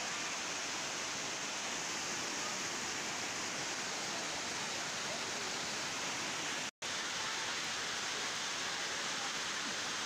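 Waterfall rushing, a steady, even roar of falling water that breaks off for an instant about two-thirds of the way through.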